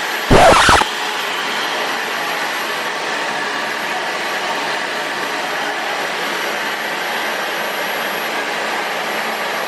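Revair reverse hair dryer running, its suction fan making a steady, even air noise. A short loud burst comes about half a second in.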